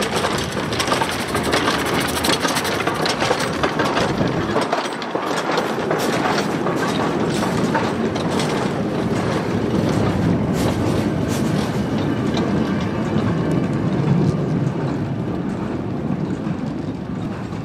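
Steam Elephant replica steam locomotive and its train passing at close range: a continuous dense clatter and knocking of wheels on the rails and running gear, easing off near the end as the train moves away.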